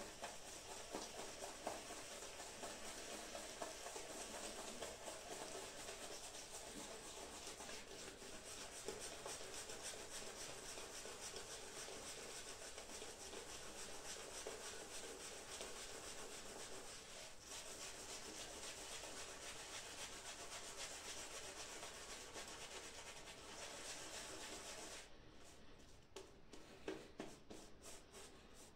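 Shaving brush working shave-soap lather on the face: a faint, steady bristly rubbing as the brush is swirled over cheeks and neck. It grows quieter near the end and breaks into separate strokes.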